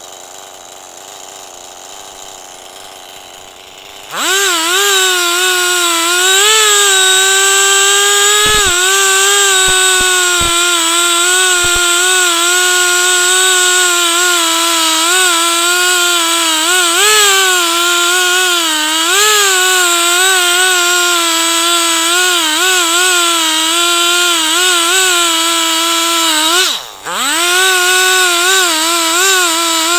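Chainsaw mounted in an Alaskan-style chainsaw mill, throttling up suddenly about four seconds in and running at high speed under load as it rips along a log, the pitch wavering with the cut. Near the end it drops off briefly, then comes straight back up.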